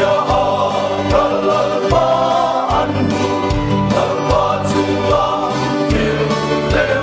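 Men's choir singing together in held chords, with a regular low beat of accompaniment underneath.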